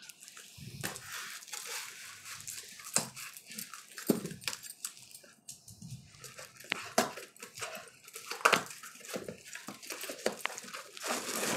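Parcel being opened: scissors cutting through packing tape and bubble wrap on a cardboard box, then cardboard scraping and crinkling as the taped inner package is slid out and handled. Irregular snips and rustles, with the loudest crinkling bursts in the second half.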